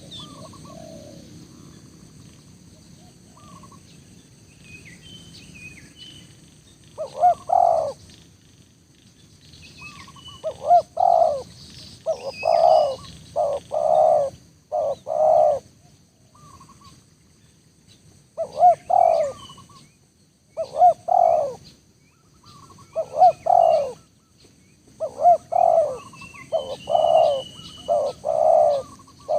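Spotted dove cooing: repeated short phrases of low, arching coo notes, starting about seven seconds in and coming every one to three seconds. Faint high chirps of small birds sound behind them.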